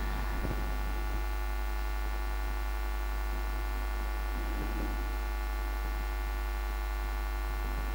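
Steady electrical mains hum with many evenly spaced buzzy overtones, unchanging throughout.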